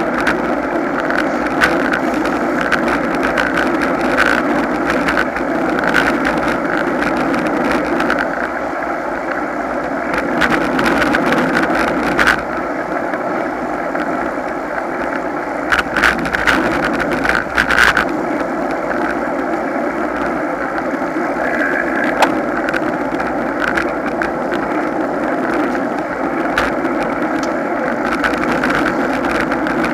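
Steady rolling noise of a road bicycle riding in a group, picked up by a camera mounted on the bike: wind on the microphone and tyre and road rumble, with a few sharp knocks from bumps around the middle.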